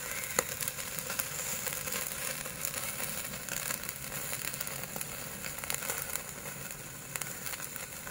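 Pork sizzling on a wire grill over wood charcoal, with steady crackling and many small pops as fat hits the flames; one sharper pop about half a second in.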